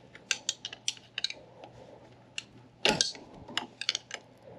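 Light metallic clicks and taps of a pick and breaker bar working a serpentine belt off its pulley, with one louder knock about three seconds in.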